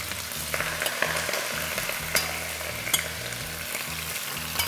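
Beef rib and flank pieces sizzling in hot oil as they go into a stainless steel pot to sear, with a steady frying hiss and a few sharp clicks of metal tongs against the pot.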